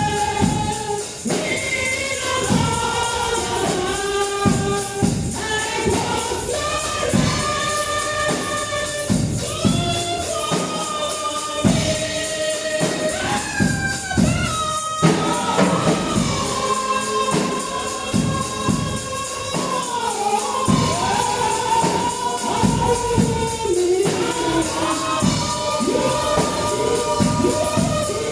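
Gospel praise song sung by a group of voices, with a tambourine shaking a steady beat.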